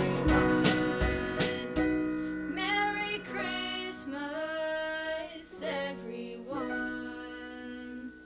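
A pop band with electric guitars and singers ending a Christmas song. Drum hits run for the first couple of seconds, then a held closing chord with sliding sung notes over it fades out.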